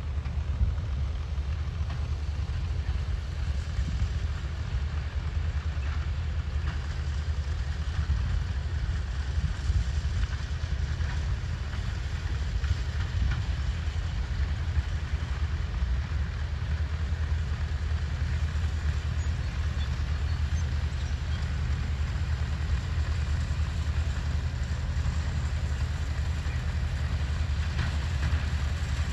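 Ford 4110 tractor running steadily under load as it pulls a New Holland 489 haybine cutting hay, a continuous low rumble with a steady haze of mower noise over it.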